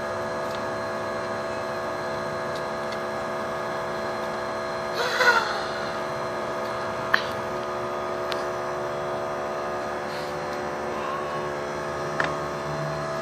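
A steady hum with several held tones throughout. A brief voice with a bending pitch about five seconds in, and one sharp click about seven seconds in.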